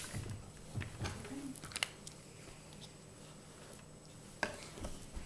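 Faint, scattered clicks and soft squishing from a bowl of glue-and-activator slime being mixed by hand.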